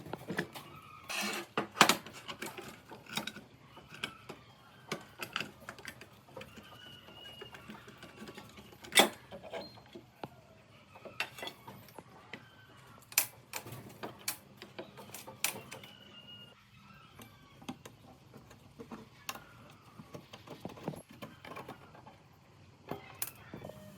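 Irregular metallic clicks, clinks and knocks of metal tools and parts being handled while a benchtop jigsaw is worked on, with a few sharper knocks standing out.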